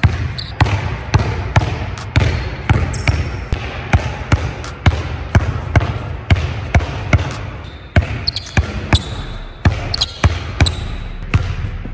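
A basketball being dribbled on a hardwood court in an empty arena: steady bounces, about two a second.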